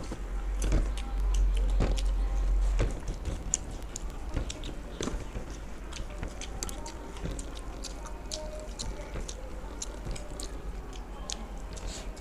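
People chewing and eating food, with many small sharp mouth clicks. A low rumble runs under the first three seconds.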